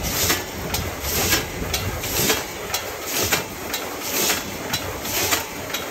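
Continuous-motion vertical form-fill-seal packing machine running, with a sharp clack about twice a second over a steady mechanical hiss and rumble.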